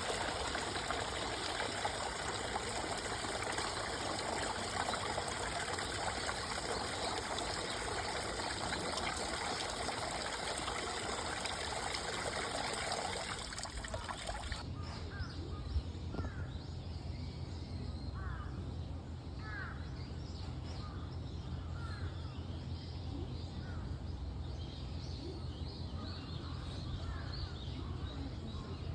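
Running water, a stream's steady rush, for about the first half; then, after a sudden change, birds calling over and over above a low rumble.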